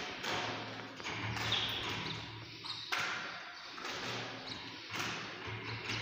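Caged canaries chirping faintly now and then, among scattered taps and knocks from the wire cages, over a low steady hum.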